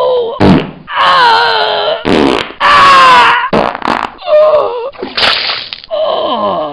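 A quick run of about eight short comic sound effects, one after another with sharp cuts between them, each a pitched, wavering sound. The last one slides down in pitch.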